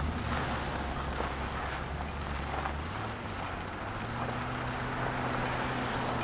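A vehicle engine running with a low, steady hum; the hum steps up in pitch about three seconds in.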